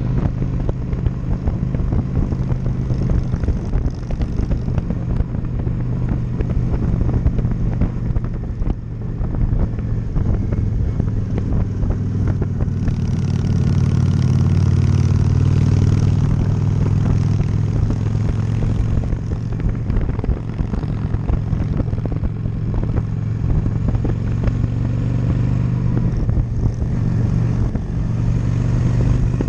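Honda Shadow V-twin cruiser motorcycle engine running steadily while riding, with wind rushing past the microphone. The engine note grows louder about halfway through, then settles back.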